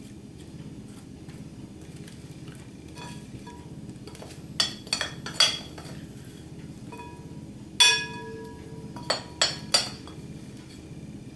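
Metal spoon clinking against a dish while scooping sliced apple filling: three quick clinks about halfway in, the loudest clink a few seconds later with a brief ring, then three more near the end.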